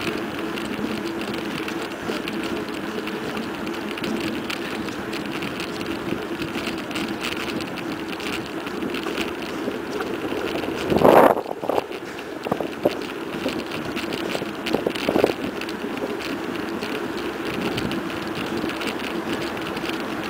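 Mountain bike coasting fast downhill on asphalt: steady tyre hum and wind rushing over the camera's microphone. There is a brief louder burst about eleven seconds in and a couple of smaller ones after it.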